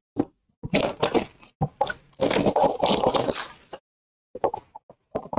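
A sealed cardboard trading-card box being handled and turned in the hands: irregular scraping and crinkling of its wrapper, with a short pause near the end before more rustles.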